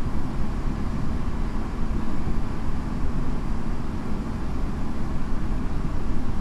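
Tokyo Metro 8000 series train running between stations, heard on board: a steady rumble of wheels on rail with a faint steady hum.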